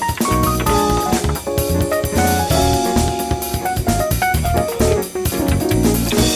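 Instrumental background music with a drum kit keeping a steady beat under a melody.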